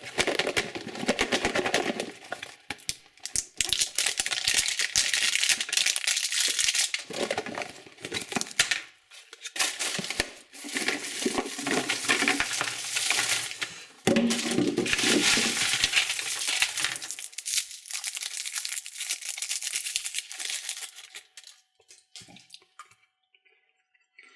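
Candy wrappers crinkling and tearing as they are opened by hand, a dense crackling in several long bouts that fades out near the end.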